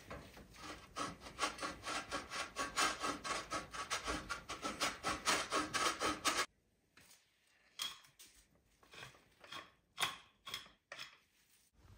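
Parmesan being rubbed on a hand grater: quick, even rasping strokes, about four or five a second, which stop after six seconds or so and are followed by a few separate strokes.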